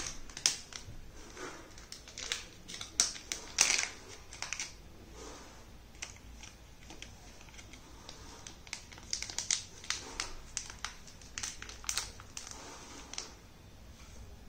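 Clear plastic sample-return bag crinkling and crackling in the hands as a collection tube is put into it, in irregular clusters of sharp crackles.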